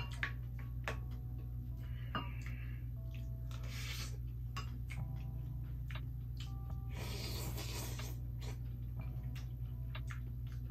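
Eating ramen: chopsticks and a spoon click against ceramic bowls, with noodles slurped about four seconds in and again for about a second near seven seconds in. A steady low hum runs underneath.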